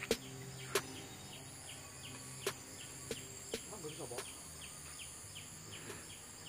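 Outdoor rural ambience: a faint, short high chirp repeating evenly about three times a second, with a few sharp clicks scattered through.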